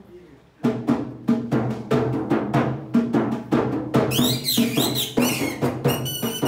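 A dholak (two-headed barrel drum) starts playing about half a second in, a fast steady rhythm of deep and sharp strokes. About four seconds in, shrill squeaking warbles join the drumming: the kathputli puppeteer's boli reed whistle, voicing the puppet.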